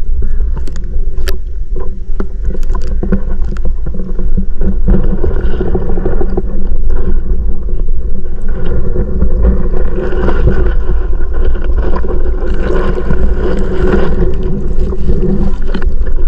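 Muffled underwater rumble and sloshing picked up by a GoPro inside its waterproof housing, with a few sharp ticks in the first seconds and more hiss from about three quarters of the way through.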